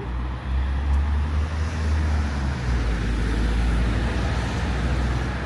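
Road traffic close by: a vehicle's low engine rumble and tyre noise. It rises about half a second in and holds steady.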